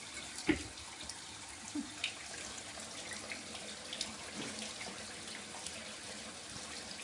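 Bathtub faucet running steadily into the tub, with a short knock about half a second in.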